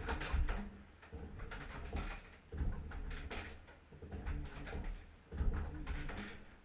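Washing machine agitating, surging in a steady back-and-forth rhythm about every second and a half as the drum or agitator reverses and churns the load.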